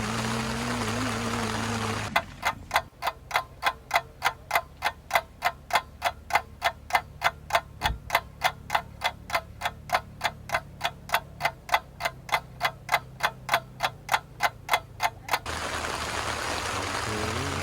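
Clock-like ticking, about three even ticks a second for some 13 seconds, starting and stopping abruptly as an edited-in ticking sound effect. Background music with a steady hiss plays before and after it.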